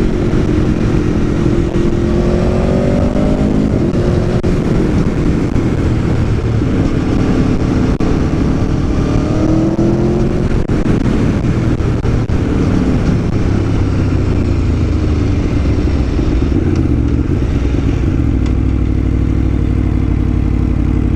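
Aprilia Tuono V4 1100's V4 engine pulling the bike along the road, its pitch rising and falling several times with throttle and gear changes, then holding steadier near the end.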